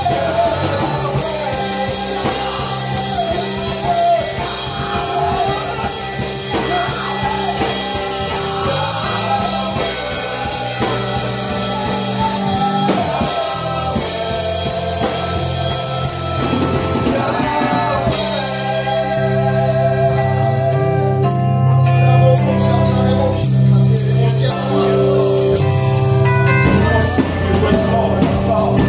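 Live church worship song: a group of singers on microphones singing over instrumental backing with sustained bass notes and a beat. It builds and gets louder about two-thirds of the way through.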